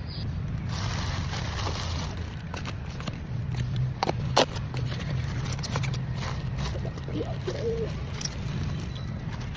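Steady low rumble of passing traffic, with scattered light clicks and one sharp click about four seconds in.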